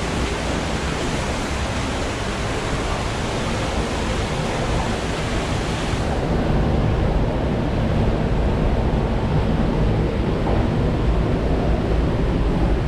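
Steady, loud rushing of a waterfall with low rumbling buffeting on the microphone. About halfway through, the highest hiss drops away and the sound turns duller.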